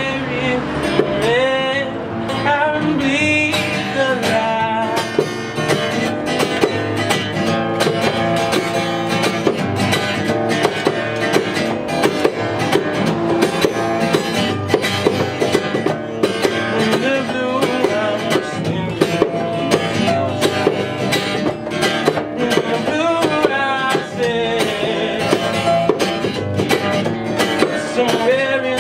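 Acoustic guitars strumming and picking a steady, upbeat groove with hand percussion, with a singing voice coming in and out over it.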